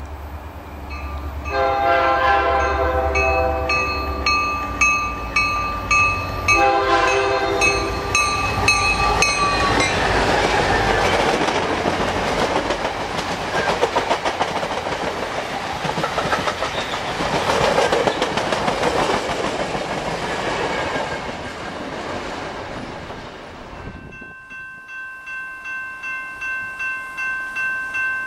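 A GP40-2LW diesel locomotive's three-chime Nathan K3L horn sounds two long blasts over the engine's low rumble as the train approaches. The passenger cars then pass with steady wheel and rail clatter. About 24 seconds in, the sound cuts to a grade-crossing warning bell dinging about twice a second.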